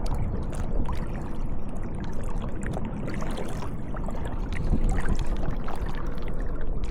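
Water sloshing and splashing around the legs of someone wading through shallow lake water in waders, a continuous noisy swish with small splashes.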